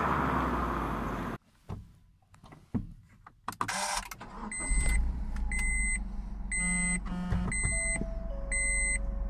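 The Honda S660 fading as it drives away, then, inside the cabin, a few clicks and knocks. After that a dashboard warning chime beeps about once a second over the low rumble of the car's engine.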